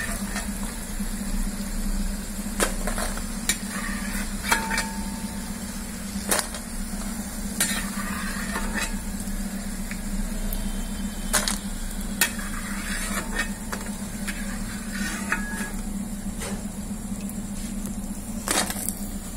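Coconut oil sizzling in a steel kadai as diamond-cut pieces of spinach dough deep-fry, with a perforated steel skimmer clinking and scraping against the pan repeatedly. A steady low hum runs underneath.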